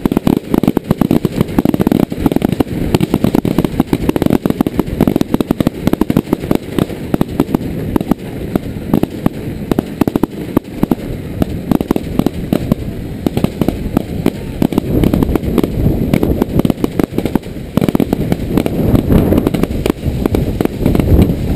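Fireworks finale: a continuous barrage of many rapid, overlapping bangs, easing somewhat midway and building up again near the end.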